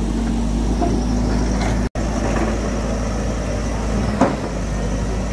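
A heavy engine running steadily with an even low hum. The sound cuts out for an instant near two seconds, and there is a single sharp knock about four seconds in.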